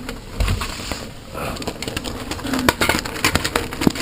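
Hurricane wind gusting and buffeting the microphone, with rain spattering in a rapid patter of small clicks and knocks, and a brief low moan about two and a half seconds in.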